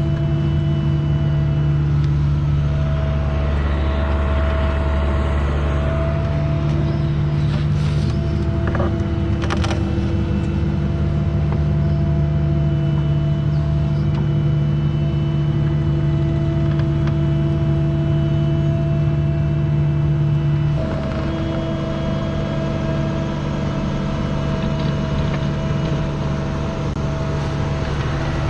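Mini excavator's diesel engine running steadily close by, with a few brief clanks in the first half. The engine note and level change slightly about two-thirds of the way through.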